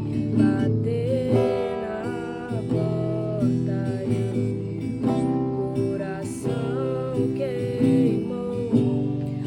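Music: an instrumental passage led by acoustic guitar, with a bending melody line over sustained low notes.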